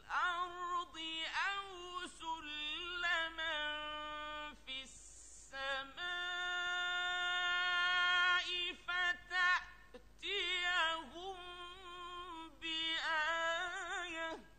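Solo male voice reciting the Quran in a melodic, ornamented chanting style, with long held and wavering notes in phrases broken by short breath pauses. The final phrase ends abruptly right at the end.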